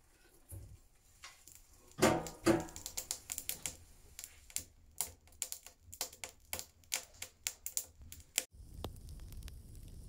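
Wood-fired sauna stove: two heavy knocks of its metal firebox door, then burning firewood crackling and popping in the firebox with irregular sharp snaps. Near the end the crackling stops and a steady low rumble takes over.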